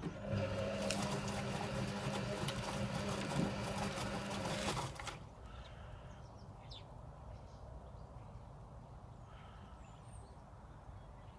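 Servis Sapphire 6055 washing machine running its drum motor during the wash, a steady hum with a hiss over it, which stops suddenly about five seconds in as the drum pauses between tumbles. Faint ticks follow.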